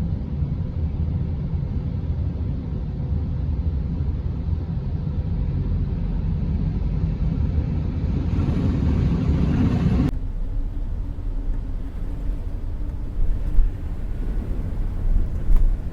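Thunderstorm wind gusting hard against the microphone with rain, a loud low rush that swells about ten seconds in, then cuts off abruptly to a quieter steady rush of wind and rain.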